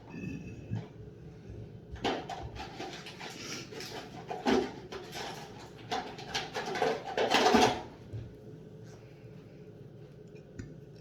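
Clicks, taps and rustles of makeup being handled and applied, with the loudest bursts about four and a half and seven and a half seconds in.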